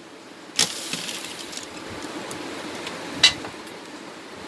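Two sharp metallic clicks, one about half a second in and a sharper one about three seconds in, as hands handle the sheet-metal back of an LED TV panel, over a steady background hum.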